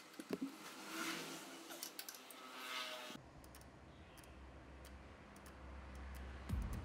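Faint, sharp clicks of a hand tool working the handlebar clamp bolts of a small motorcycle. About three seconds in, a low steady hum takes over, with a few sparse light clicks.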